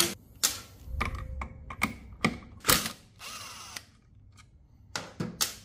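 Impact driver with a 15 mm socket undoing the variator and clutch pulley nuts: short bursts and sharp metallic clicks, with a longer run of about half a second in the middle as a nut spins off.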